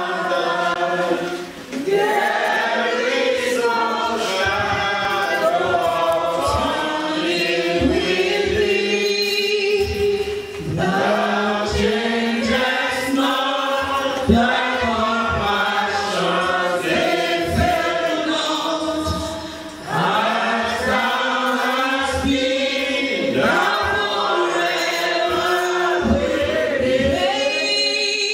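A mixed congregation of men and women singing a hymn together, without instruments, pausing briefly between lines.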